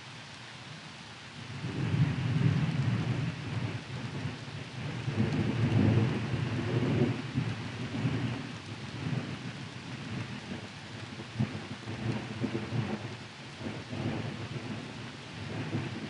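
Thunderstorm: steady rain with low rolling thunder that swells about a second and a half in, peaks twice, then dies down to lighter rumbles.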